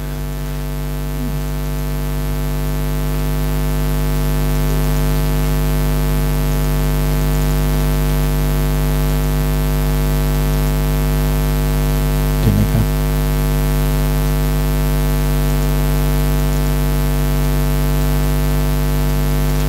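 Steady electrical mains hum, a buzz with many overtones, over a hiss of noise; a brief low sound breaks in about twelve seconds in.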